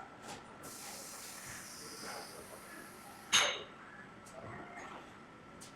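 Steady high hiss of pressurised spray starting about half a second in and cutting off at a single sharp clack a few seconds later, with faint metallic clinks and a faint steady tone underneath.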